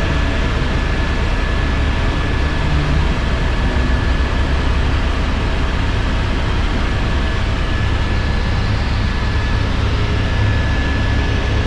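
Helicopter in steady cruising flight, heard from inside the cabin: a dense, steady rotor and engine rumble, heaviest in the low end, with a thin, steady high whine over it.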